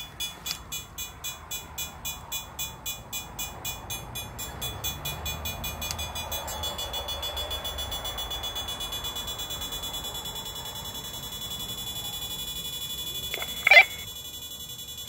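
Hand-held hydrogen gas leak detector (DS-Multi 1) beeping as it picks up hydrogen tracer gas escaping from a leaking water pipe. The beeps speed up from about three a second into a near-continuous tone as the gas reading climbs, marking the leak point. A short, louder tone sounds near the end.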